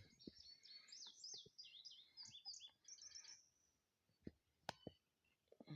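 Faint birdsong: a rapid string of short, high chirps, each sliding down in pitch, for about three seconds, followed by a couple of faint clicks.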